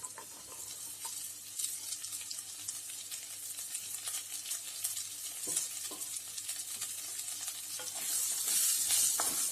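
Small onions frying in hot coconut oil with crushed pepper and ginger, sizzling and crackling while a spoon stirs and scrapes them around the pan. The sizzle grows louder near the end.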